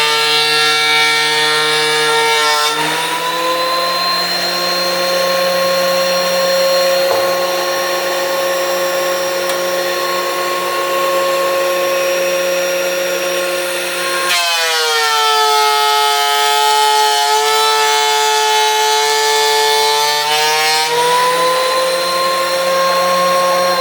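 DeWalt thickness planer running with a steady, loud motor whine while planing old stair tread. The pitch sags under load in the first few seconds and again from about halfway to near the end, recovering between: a cut set too deep.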